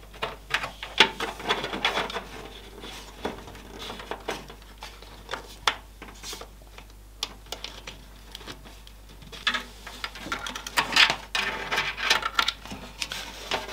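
Irregular light clicks, taps and rubbing as PC case cables and plastic connectors are handled and plugged into motherboard headers.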